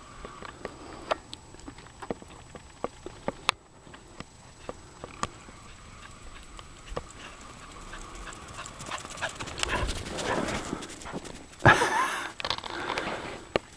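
Footsteps crunching on packed snow: scattered single crunches at first, then a denser run of steps in the second half, with one louder scuff near the end.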